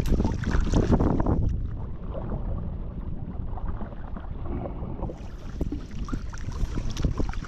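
Gusty wind buffeting the microphone out on open water, a dense low rumble. It eases about a second and a half in and picks back up around two-thirds of the way through.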